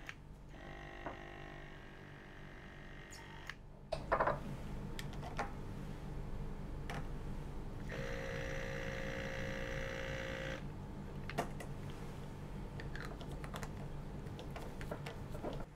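Electric pipette controller's motor whirring for a few seconds as it draws glycerol solution up a serological pipette, then whirring again about eight seconds in as it dispenses into a plastic centrifuge tube. In between and after come sharp clicks and knocks of glassware and plastic being handled, loudest about four seconds in, over a steady low hum.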